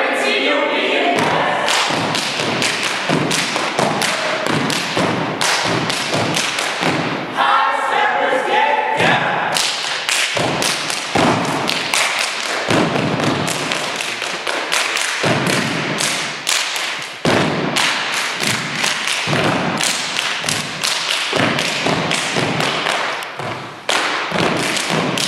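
Step dance routine: dancers' rhythmic foot stomps and hand claps on a wooden stage, in fast, tightly synchronized patterns. Bursts of group voices come in near the start and about eight seconds in.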